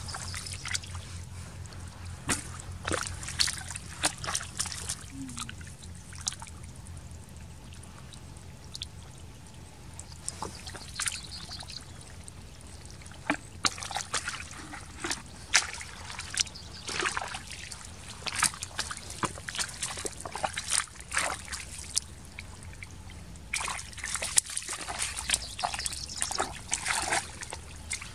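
Hands splashing and squelching in shallow muddy water, in many short, irregular splashes over a low steady hum.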